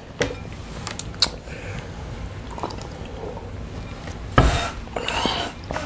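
Drinking from a large plastic water jug: a few small clicks from the jug and its lid, then swallowing and sloshing of water, loudest about four and a half seconds in.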